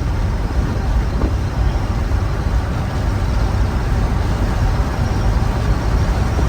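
Steady road noise and engine rumble of a truck driving along, heard from inside the cab.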